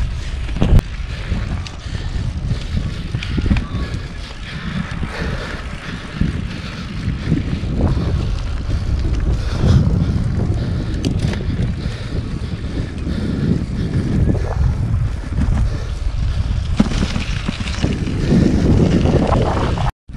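Wind buffeting the microphone while riding a road bike at speed, a steady low rumble, with the hiss of 30 mm tyres rolling on bitumen. It breaks off for a moment near the end.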